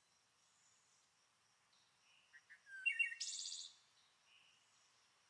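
Birdsong sound effect: faint chirping in short snatches, with a brief flurry of chirps and a rapid trill about three seconds in.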